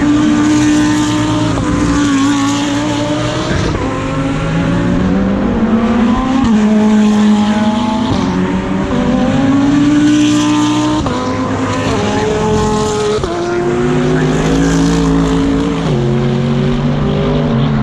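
GT3 race car engine at racing speed, its pitch climbing and then dropping abruptly again and again with the gear changes.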